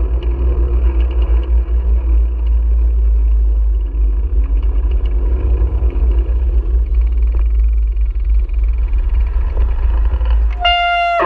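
Steady low wind buffeting on an action camera's microphone, with tyre rumble from a bicycle rolling over pavement. Near the end a sustained musical note with many harmonics comes in, bending slightly downward.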